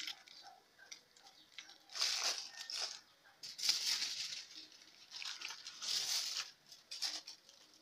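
Aluminium foil crinkling and rustling in a series of short bursts as it is wrapped and folded around a food roll by hand.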